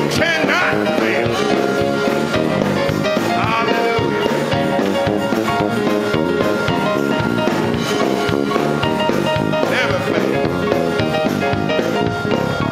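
Live gospel music from a church choir and band: sustained chords over a drum kit, with a voice sliding through gliding runs a few times.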